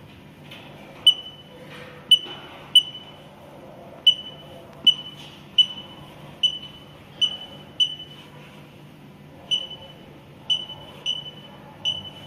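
Touchscreen control panel of a TSP-CV1 automated tissue processor beeping at each finger press as the time-setting arrows are tapped. Short, high single beeps come about a dozen times, unevenly spaced, a fraction of a second to a second and a half apart.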